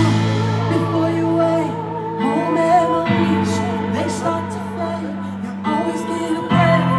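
Live concert music over a PA: held low chords that change about three seconds in and again near the end, with a wavering sung melody over them.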